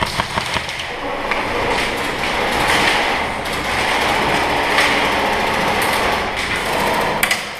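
Airsoft guns firing: a rapid burst of shots at the start, a dense din of further fire through the middle, and a couple of sharp shots near the end.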